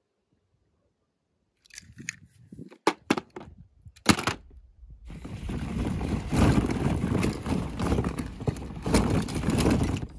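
Hollow plastic play balls knocking and clattering against each other and the plastic tub as a hand rummages through them. Silent for the first second and a half, then a few separate knocks, then steady rustling clatter from about five seconds in.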